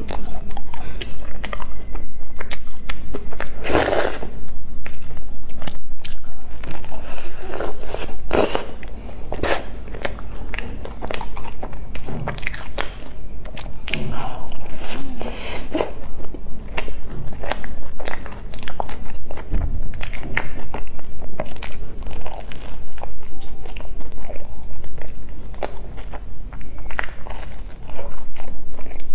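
Close-miked biting and chewing of crusty crumb-coated bread buns: the crisp crust crunches and crackles with each bite, with wet mouth sounds of chewing between, and a few louder crunches about four and eight seconds in.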